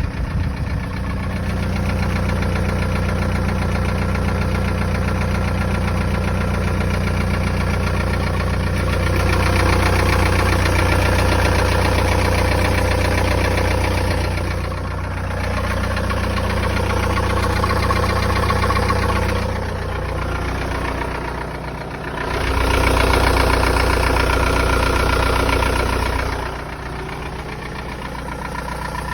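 Volkswagen 1.9 TDI four-cylinder diesel engine (1Z, 66 kW), hot, idling with a knock. Its level swells and drops a few times.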